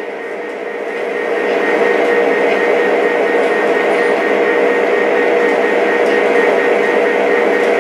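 Lionel O-gauge model railroad running: a steady electric-motor hum with a constant whine and a rolling sound from the track. It swells over the first couple of seconds and holds.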